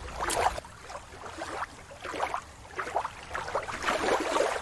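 Water splashing and lapping in short, uneven surges.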